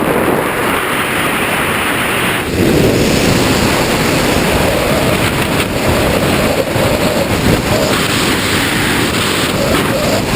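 Wind rushing and buffeting over the camera microphone during a parachute canopy descent, a loud steady rush with small gusty swells.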